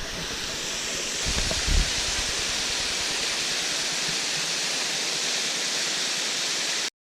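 Waterfall rushing with a steady, even roar of falling water. A brief low thump comes about a second and a half in, and the sound cuts off abruptly near the end.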